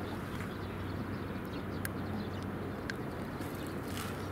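Steady outdoor background noise with a constant low hum and a couple of faint ticks about two and three seconds in.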